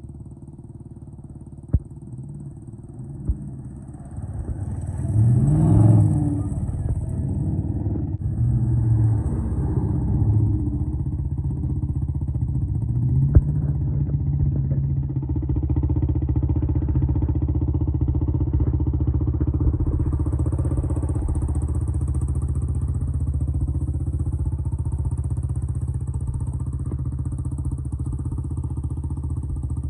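Pickup truck engine running, rising in pitch and loudness about five seconds in and again about thirteen seconds in, then holding steady.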